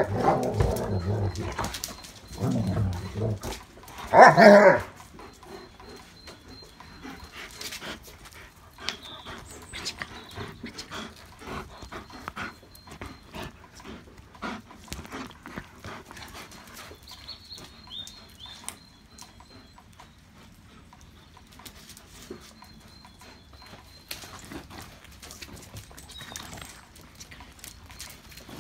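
German shepherds play-growling and vocalizing at each other in three loud bouts within the first five seconds, then only light scattered clicks and taps.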